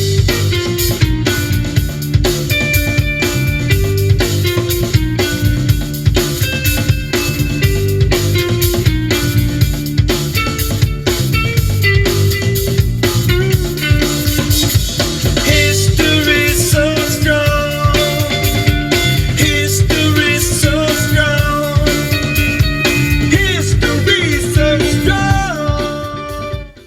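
A song with drums and guitar played loud through a Blaupunkt Bremen SQR46 DAB car head unit and the truck's speakers, as a sound-quality demonstration. The music cuts off near the end.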